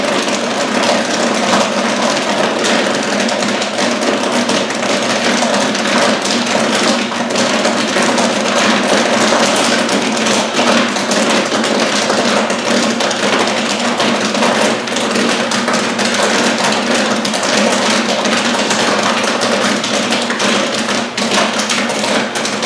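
Gold Medal Cornado's 48-ounce popcorn kettle popping a batch at full rate: a dense, continuous crackle of kernels bursting, over the steady hum of the machine's motor and exhaust fan.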